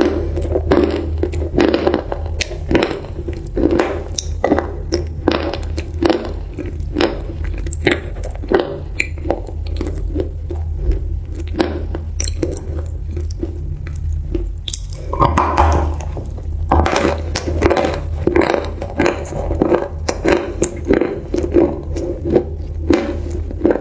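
Close-miked crunchy chewing: a dense run of sharp crackling crunches, several a second, over a steady low hum.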